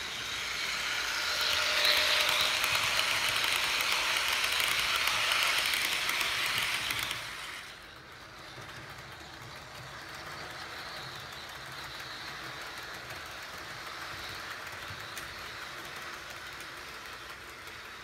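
HO scale model train cars rolling along the track, a loud steady rushing rumble for the first seven seconds or so, then suddenly quieter as the sound continues with a passenger train of bilevel coaches running past further off.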